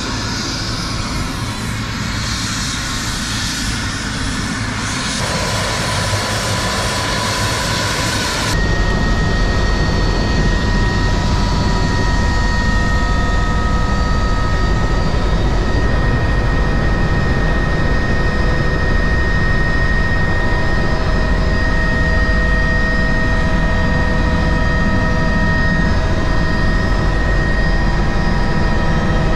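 Helicopter engine and rotor noise: a steady whine over a dense low rumble. It turns louder and fuller about eight seconds in, then holds steady as heard inside the cabin.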